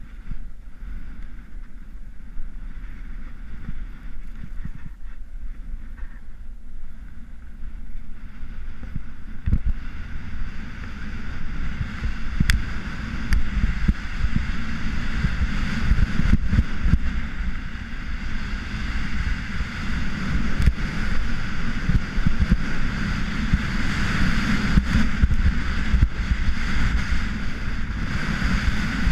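Salomon Rocker II skis sliding and carving on groomed snow, a rough scraping hiss, with wind rumbling on the microphone. The sound grows louder and brighter about ten seconds in.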